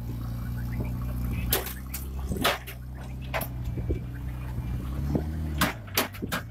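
An engine running steadily at a Bofors FH-77B howitzer, with a series of sharp knocks and clanks; the engine note shifts near the end.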